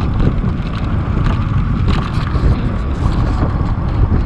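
Wind buffeting the microphone of a camera on a moving bicycle: a heavy, steady rumble of wind and riding noise.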